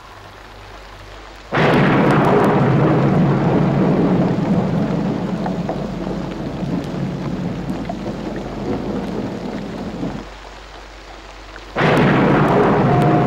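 Thunderstorm: a sudden thunderclap about one and a half seconds in, rumbling and slowly dying away over some eight seconds, then after a short lull a second sudden clap near the end.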